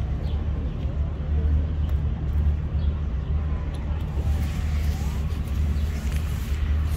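Steady low outdoor rumble, with no distinct event standing out.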